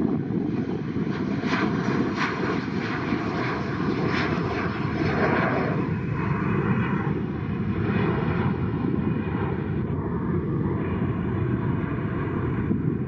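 Boeing 737-400's CFM56-3 turbofan engines at takeoff power as the jet climbs out: a steady, loud low rumble, with a brighter upper edge that thins out about halfway through as the aircraft draws away.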